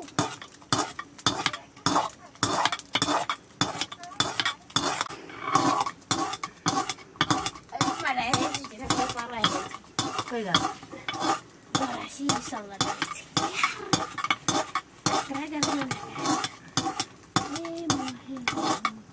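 A long metal ladle stirring thick maize-flour porridge in a round metal pot, knocking and scraping against the pot several times a second in a steady run.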